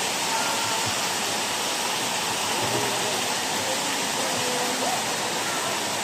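Waterfall cascading over a smooth rock slope: a steady, even rush of water, with faint voices of people in the water behind it.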